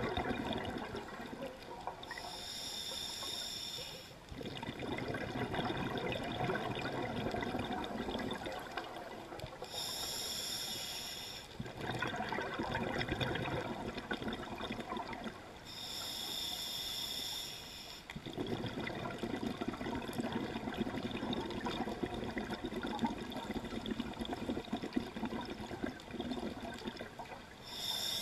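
Scuba diver's regulator breathing underwater: a hissing inhalation about every six to ten seconds, four in all, with long bubbling exhalations in between.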